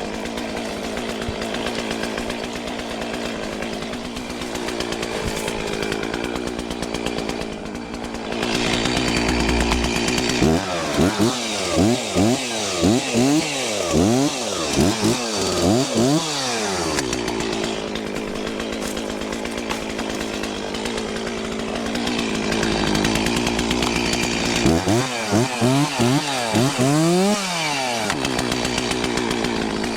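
Stihl 036 Pro two-stroke chainsaw running at idle, then revved up and down in quick throttle blips, about one a second, in two spells: one starting about ten seconds in, another near the end.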